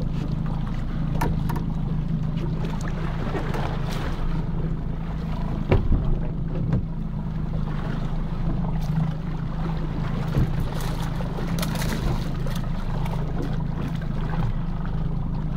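Boat engine running steadily at a constant low hum, with a few scattered sharp knocks.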